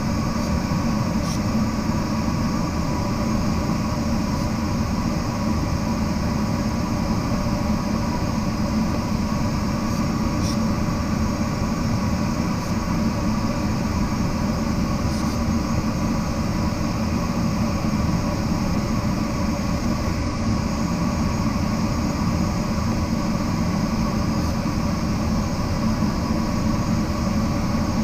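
Steady rush of air and cockpit hum inside a glider in flight, unchanging throughout, with a faint steady tone above it.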